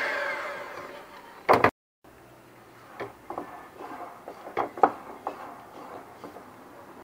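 Kenwood electric hand mixer winding down, its whine falling in pitch and fading, then a sharp knock. After a short break, a silicone spatula scrapes and taps against the glass mixing bowl, with several light knocks.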